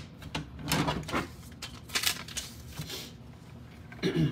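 Hard plastic graded-card slabs being handled: a run of light clacks and rustles as the cases are set down and picked up, with a brief bit of voice near the end.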